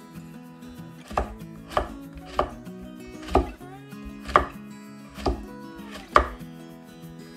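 Kitchen knife chopping carrot on a wooden cutting board: seven sharp knocks of the blade striking the board, spaced unevenly about half a second to a second apart.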